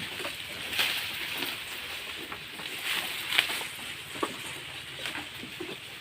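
Sheep pen ambience: scattered short rustles and knocks over a steady hiss, with a few louder ones about a second in and around three seconds in.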